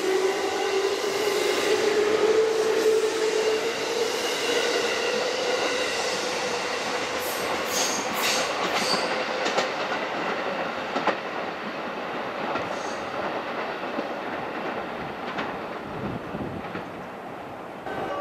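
JR West electric train pulling away, its motor whine rising in pitch over the first few seconds as it speeds up. Wheels then clack over rail joints and points, and the sound fades slowly.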